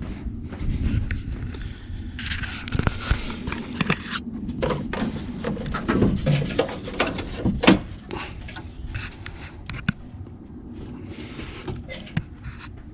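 Handling noises from a pickup's hood being unlatched and raised: scattered knocks and clicks with rustling, busier in the first half and quieter in the last few seconds.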